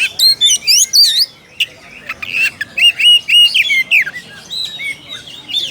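Oriental magpie-robin (kacer) singing its challenge song at a rival: loud, varied whistled phrases with quick rising and falling notes, then a run of repeated clear whistles.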